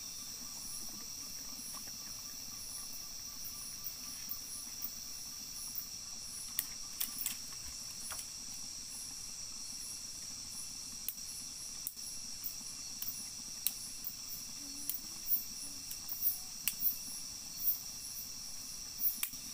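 Night chorus of crickets and other insects: a steady high trill with a second, higher insect pulsing in a regular beat. Scattered sharp ticks and crackles come more often in the second half.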